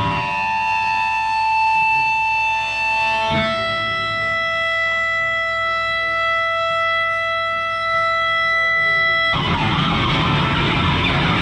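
Live band: electric guitars let held chords ring out, moving to a new chord about three seconds in. About nine seconds in, the drums and the full band come in loud together.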